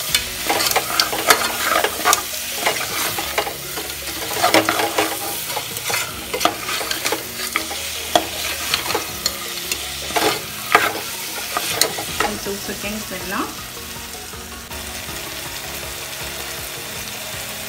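Metal ladle scraping and clinking against an aluminium pressure cooker as chicken pieces are stirred and fried with spice powders, over a steady sizzle. The scraping stops about twelve seconds in, leaving only the quieter sizzle.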